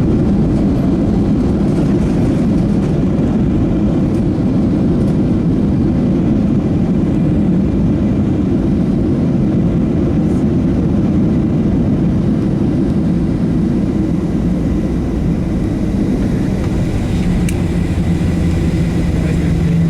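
Steady low rumble of engine and airflow noise inside the cabin of a Boeing 737-700 airliner, with a steady low hum joining near the end.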